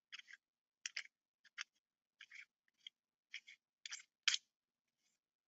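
Faint short scratchy clicks of threaded parts being screwed together by hand as a reamer attachment is twisted into the head of a TACKLIFE 3-in-1 hand rivet tool. About a dozen irregular clicks, the loudest just past four seconds in.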